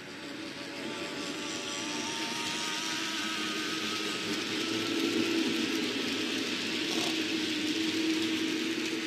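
N gauge model freight train running past: the locomotive's small electric motor whirring and the wagon wheels running on the rails as a steady hum, growing louder over the first few seconds as the train comes closer.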